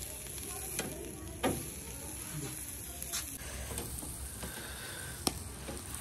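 Tandoori chicken pieces sizzling on a wire grill over glowing charcoal, a steady hiss with a few sharp clicks.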